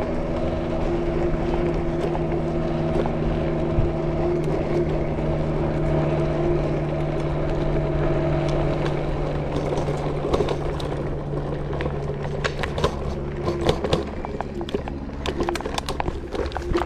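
Electric scooter on the move: a steady motor whine over the rumble of the tyres and wind. About nine seconds in the whine fades, and the ride turns to a rattle of sharp knocks and clatter as the wheels run over hexagonal concrete paving stones.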